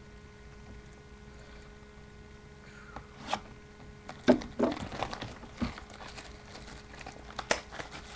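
Plastic shrink-wrap being torn and crinkled off a sealed trading-card box: an irregular run of crackles and snaps that starts about three seconds in.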